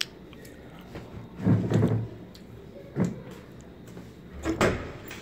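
Someone chewing a mouthful of pomegranate arils, whose seeds are hard, in three short bouts about one and a half, three and four and a half seconds in, the first the loudest, after a sharp click at the start as the arils are picked from the fruit.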